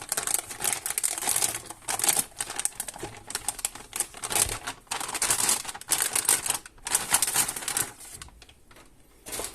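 Crinkling and rustling of packaging as a graphics card is taken out of its box: a dense run of short crackles that eases off near the end, with one last brief rustle.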